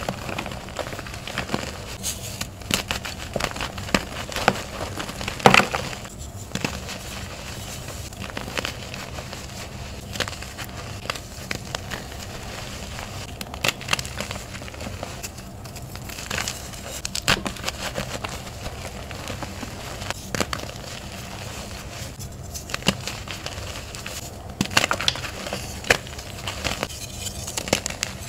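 Hands crushing and crumbling blocks of reformed gym chalk into powder: a run of irregular crisp crunches and crackles, the loudest about five and a half seconds in.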